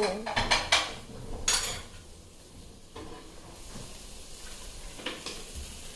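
Utensils clinking and scraping against dishes, with several quick clinks at the start and a short scrape about a second and a half in, over a faint steady sizzle from a pan.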